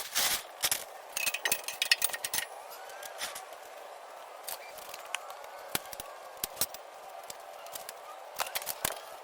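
Irregular clicks and light clinks, with a quick run of rapid clicks between about one and two and a half seconds in.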